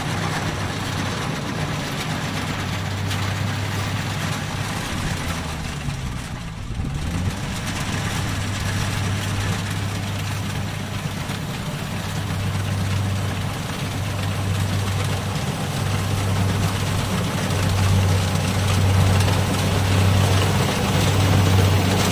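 Kubota DC-70 rice combine harvester running while it cuts rice: a steady low engine hum with dense machinery noise over it, dipping briefly about six seconds in and growing louder over the last few seconds as the machine comes close.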